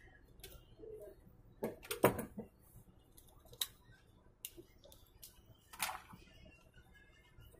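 Scattered sharp clicks and light plastic handling knocks as a plastic insulating sheet is worked loose from a monitor's power supply board. The loudest is a quick pair of clicks about two seconds in, with single clicks following every second or so.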